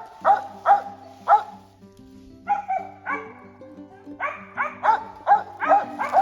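Squirrel-hunting dog barking: about a dozen sharp barks, a quick run of four at the start, then after a pause another run that comes faster toward the end. Background music plays steadily underneath.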